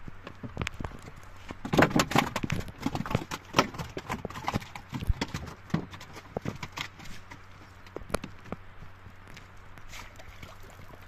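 Knocks and thumps against the planks of a small wooden boat as a gill net is hauled aboard with a caught tilapia, with a quick run of knocks about two seconds in and scattered ones after, and water splashing from the net.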